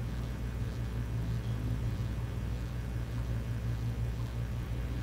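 Steady low hum of room tone, with no speech.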